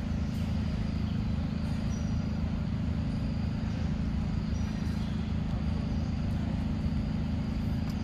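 Steady low rumble with no clear beat, a few faint short high chirps above it.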